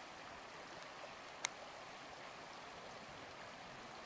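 Faint steady rush of flowing river water, with one short click about a second and a half in.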